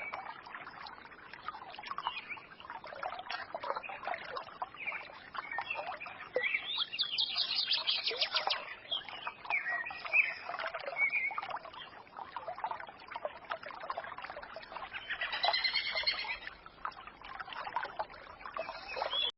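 Small songbirds chirping and twittering over a trickling forest stream. Two louder spells of rapid song stand out, about a third of the way in and again past three-quarters of the way through.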